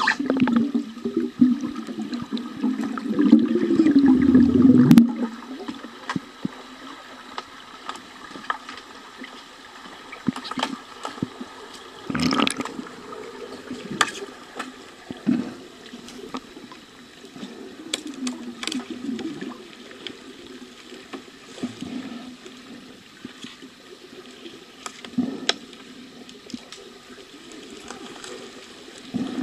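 Water and bubbles heard through an underwater camera in a pool: a muffled gurgling rush, loudest for the first five seconds and then cutting off. After that it is a quieter low rumble of moving water with scattered sharp clicks and knocks.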